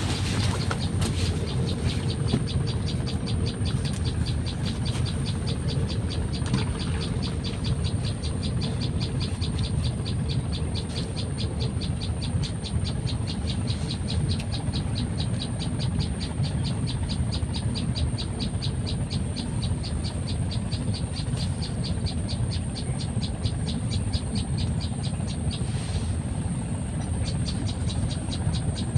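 Fishing reel being cranked: a rapid, even ticking that stops a few seconds before the end. Under it runs a steady low rumble and a thin high whine.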